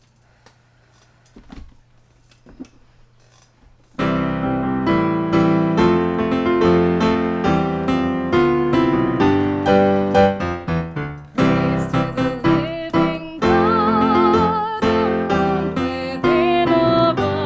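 A few faint clicks over quiet, then piano music starts about four seconds in and carries on, with a wavering, vibrato melody line joining in the second half.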